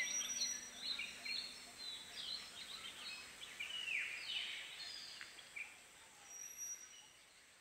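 Many birds chirping together in short, quick calls that fall in pitch, fading steadily toward the end.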